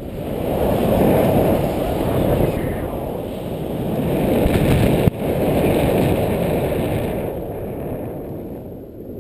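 Wind rushing over the camera microphone as a paraglider flies acro turns: a loud, low roar of airflow that swells and eases several times with the speed of the manoeuvres.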